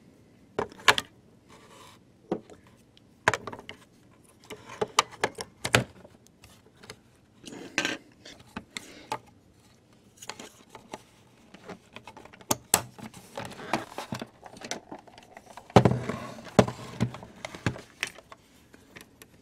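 Handling clicks and knocks from a Panasonic RQ-309S cassette recorder: C-cell batteries settling in the battery compartment and the plastic battery cover being fitted and snapped shut, then its piano-key transport buttons being pressed. The sharp clicks are scattered, with a louder cluster near the end.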